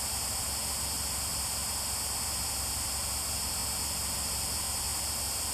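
Steady hiss of static with a low hum underneath, unchanging throughout, with no distinct sound standing out.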